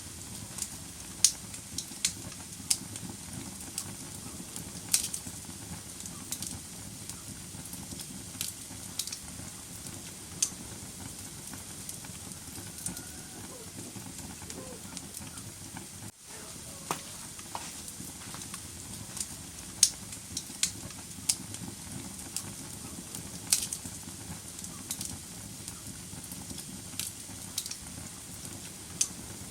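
Wood fire burning in a fireplace: a steady hiss with irregular sharp crackles and pops, and a momentary dropout about halfway through.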